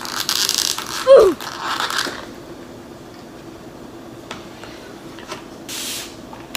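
Thin plastic lid being pried and peeled off a small sauce cup: crinkling and crackling over the first two seconds, with a short squeak falling in pitch about a second in. Then a few light plastic clicks and a brief rustle near the end.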